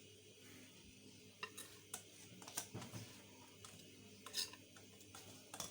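Faint, scattered taps and scrapes of a utensil against a bowl as cake batter is poured and scraped out into a baking tray.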